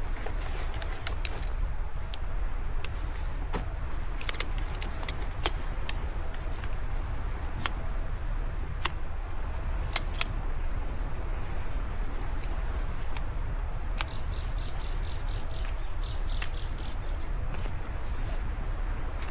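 Steady low wind rumble on the microphone, with scattered sharp clicks and a bird chirping in a quick run of notes about fourteen seconds in.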